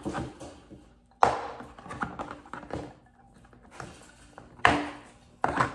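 Plastic clips of a third-gen Dodge Ram sun visor shell snapping loose as snap ring pliers pry the two halves apart: a sharp crack about a second in and two more near the end, with lighter clicks and rattles between.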